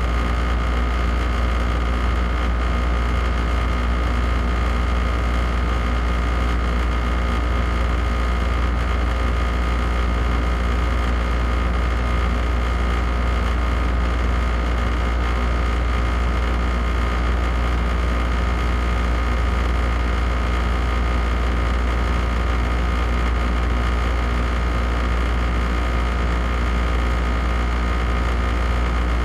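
Air conditioner running on high: a strong, steady hum with a deep low drone under an even rush of air, and a faint steady whine on top. It holds unchanged throughout.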